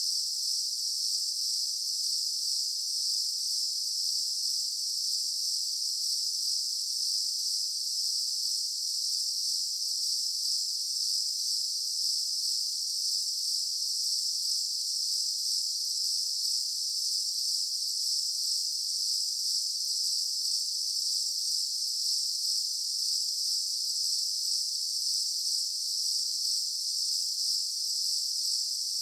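Daytime insect chorus: a dense, steady high-pitched shrill of many insects such as cicadas or crickets, unchanging throughout, with no other sounds.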